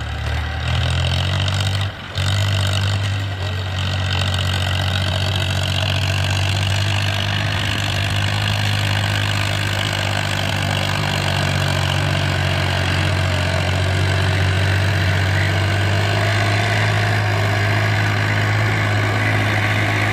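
Tractor diesel engine running steadily at a constant speed, with a brief dip in level about two seconds in.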